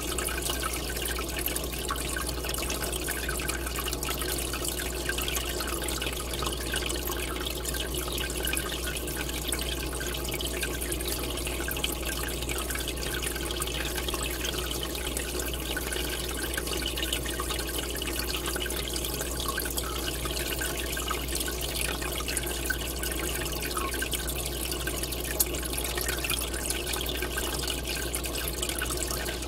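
Aquarium water bubbling and trickling steadily as air streams up from an air line, with a steady low hum underneath.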